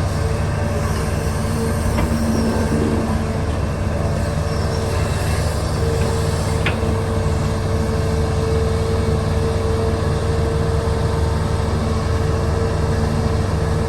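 Heavy diesel machinery engine running steadily with a deep rumble and a steady whine. The whine fades for a few seconds and then comes back strongly. There is one sharp click about seven seconds in.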